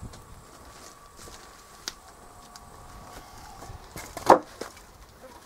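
Old wooden boards and log pieces knocked down onto a wooden sawhorse as they are piled up: a light wooden knock about two seconds in, then a loud one a little past four seconds.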